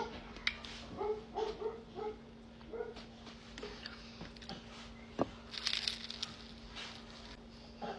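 A small dog whimpering and yipping in short, high calls several times in the first three seconds, then crisp crunching from chewing a fried flauta about five and a half seconds in.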